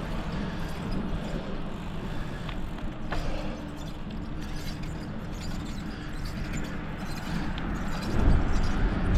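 Bicycle in motion: steady rolling and wind noise on the microphone, with a few faint clicks from the bike. The low rumble grows louder near the end.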